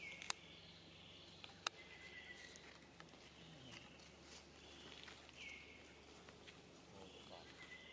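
Faint forest ambience: a few high animal calls, each sliding down in pitch and then levelling off, with two sharp clicks about a second and a half apart near the start and a thin steady high tone throughout.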